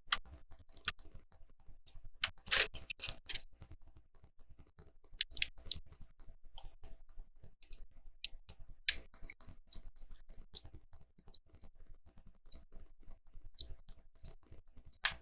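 Plastic Lego bricks being handled and pressed together: scattered sharp clicks and taps, with a quick run of clicks about two to three seconds in. A piece fails to snap on at the first try and is pressed again.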